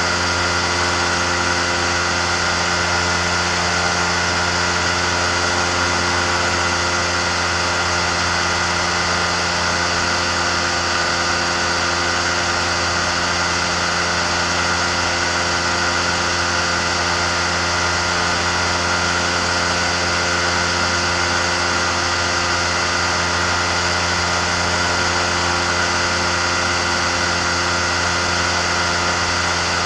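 Amphibious microlight trike's engine and pusher propeller running steadily in level flight, an even drone that does not change in pitch or loudness.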